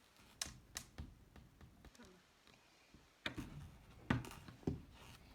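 Slime being kneaded and squeezed by hand after borax solution is worked in, giving a handful of scattered sharp, wet clicks and pops.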